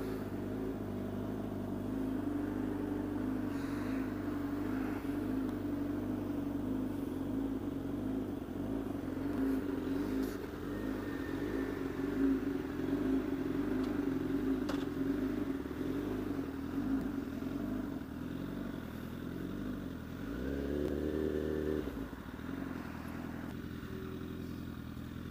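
Honda CBR1000RR sport bike's inline-four engine running under way, its pitch rising and falling with the throttle. A brief deeper tone from another source comes in about twenty seconds in.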